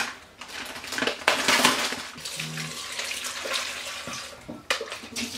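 Kitchen tap water running into a plastic bowl in a stainless steel sink as raw pork pieces are rinsed. The water starts about a second in and stops near the end, with a few knocks and rustles of plastic packaging and the bowl being handled.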